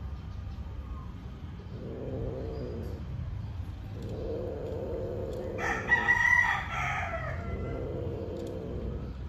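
Female cat in heat yowling in low, drawn-out moans that repeat about every two seconds while a male mates with her. A louder, higher cry breaks in at about six seconds and falls away near its end.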